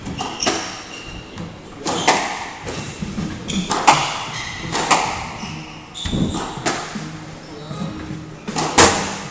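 Squash rally: the hard rubber ball cracks off the rackets and smacks the walls, about seven sharp knocks at uneven intervals of one to two seconds, echoing in the court. Short high squeaks of court shoes on the wooden floor come between the shots.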